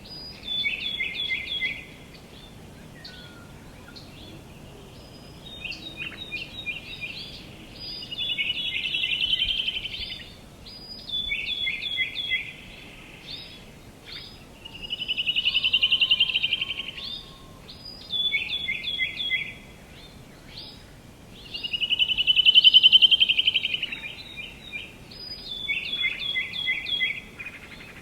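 Songbirds singing over a steady background hiss. Short runs of quick chirps repeat every few seconds, and three times a long rapid trill swells up and fades away, the third the loudest.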